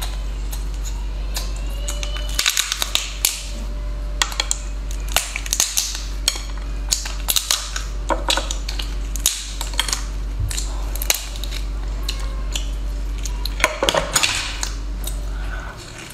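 Hard lobster shell cracking and snapping as it is broken apart by hand: a run of sharp cracks and crackles starting a couple of seconds in, bunched thickest near the end, over a low steady hum.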